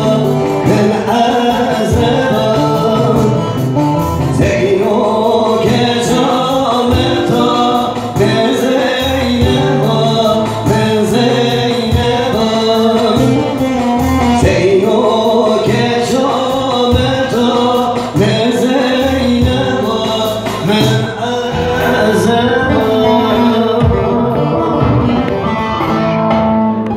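A man singing a halay dance song into a hand-held microphone, his amplified voice over musical backing.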